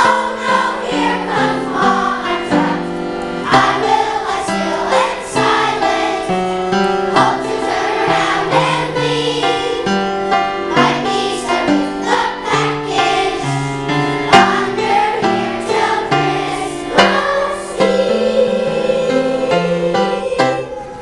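Children's choir singing a song, ending on a long held note near the end.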